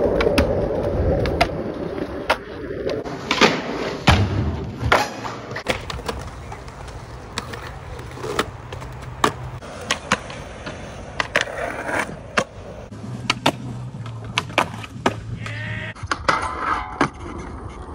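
Skateboard on concrete: the wheels roll with a steady rumble, broken by many sharp clacks and knocks from tail pops, board slaps, landings and contact with ledges and rails.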